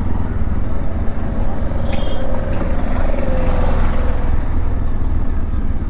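Motorcycle engine running at low speed, heard from on the bike, with a steady low rumble. A short high tone sounds briefly about two seconds in.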